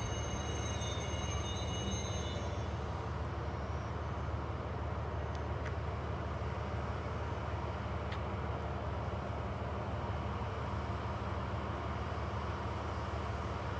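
Container freight train coming to a stand, with a high wheel or brake squeal that fades away in the first couple of seconds. After that, a steady low drone from the DF200 diesel-electric locomotive idling.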